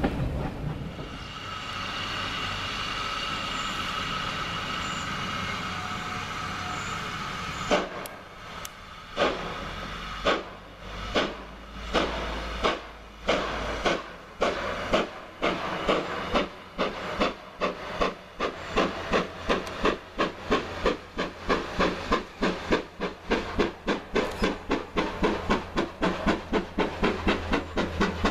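GWR steam locomotive 4160 starting its train: a steady hiss of steam for several seconds, then sharp exhaust beats that come about a second apart at first and quicken to two or three a second as it gets under way.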